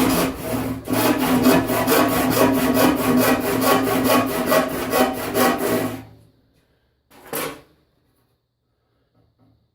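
Hand panel saw ripping a board along the grain in quick, even back-and-forth strokes, with a brief break just under a second in. The sawing stops about six seconds in, and one short noise follows about a second later.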